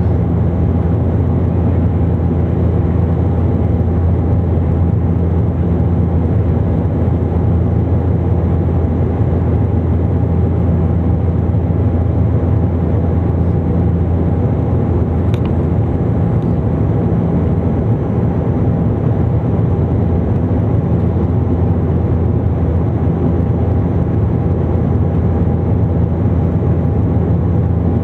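Cabin drone of a Bombardier Dash 8 Q400's turboprop engine and propeller on final approach, heard from inside the cabin beside the nacelle: a steady low hum with constant propeller tones. A faint click about halfway through.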